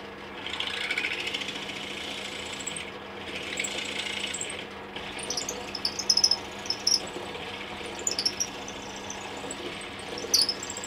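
Benchtop drill press running, its bit boring at an angle through an existing hole in oak to enlarge it. Two stretches of louder cutting over the motor's steady hum in the first half, then scattered high squeaks and chirps.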